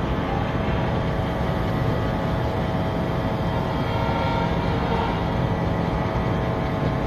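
Diesel locomotive's engine running with a steady, even drone.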